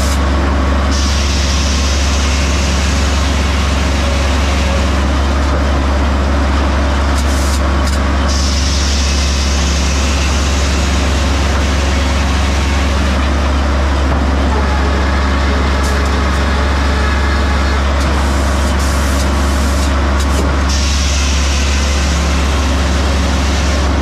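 Frick circle sawmill at work: a steady low drone from the mill's power unit, with the big circular saw cutting through a log on the carriage in passes of several seconds, its cutting noise easing briefly twice as the carriage runs back.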